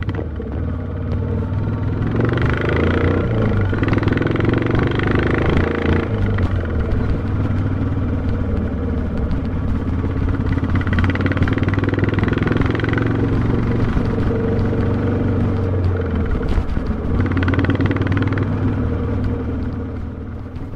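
Royal Enfield Classic 350's single-cylinder engine running steadily as the motorcycle rides along. Its sound swells three times, about two, eleven and seventeen seconds in.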